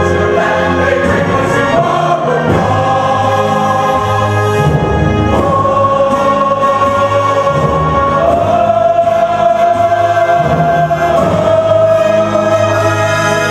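Full cast of men and women singing a finale chorus together, the voices holding long sustained notes through the second half.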